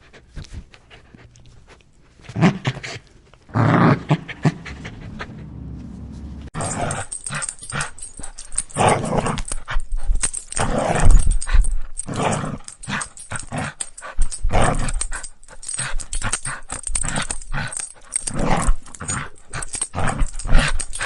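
Aggressive Rottweiler growling and panting in short, irregular bursts. The recording changes about six and a half seconds in, after which the bursts come loud and close together.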